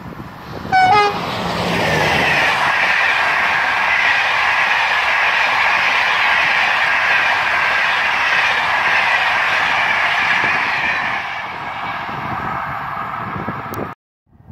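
Passenger train of SNCF Corail coaches passing close by: a short horn blast about a second in, then a steady rush of wheels on rail for about ten seconds, easing a little near the end before the sound cuts off abruptly.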